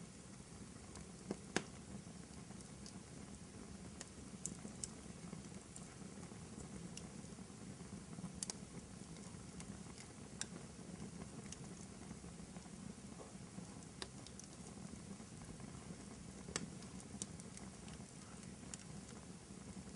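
Wood fire crackling faintly in a fireplace: a steady low rumble of the flames with scattered sharp pops and snaps, the loudest about a second and a half in and another near the end.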